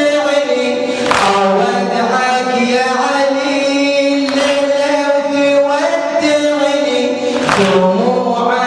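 Male voices chanting a Shia mourning lament (latmiya) in unison, in long held notes that slide between pitches, with two brief sharp sounds, about a second in and near the end.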